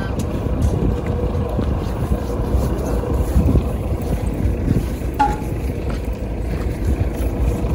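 Boat engine running steadily: a low rumble with a faint, steady hum above it.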